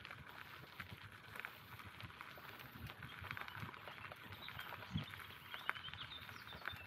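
Bicycle rolling along a forest path: steady tyre noise with many small crackles and rattles, and two sharper knocks from bumps about five seconds in.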